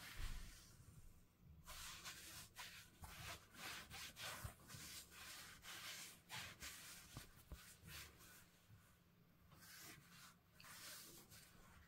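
Faint rubbing and rustling of cotton gloves handling and flexing a shoe insole, in irregular bursts with a short lull a little past the middle.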